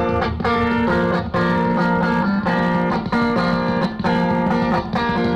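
Electric guitar sounding through effects pedals and a small amplifier: a run of sustained chords that change about twice a second.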